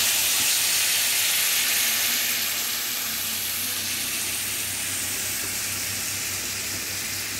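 Orange juice poured into hot caramelized butter and demerara sugar in a frying pan, sizzling and bubbling steadily. The sizzle is a little louder in the first couple of seconds, then settles.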